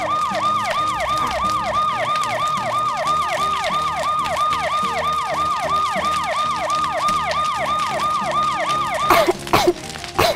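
Fire-engine siren yelping fast, about four falling sweeps a second. It cuts off suddenly near the end, followed by a few sharp clicks.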